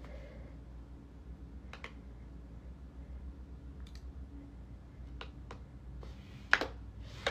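Scattered clicks from a computer keyboard and mouse, about five over several seconds, the loudest near the end, over a low steady hum.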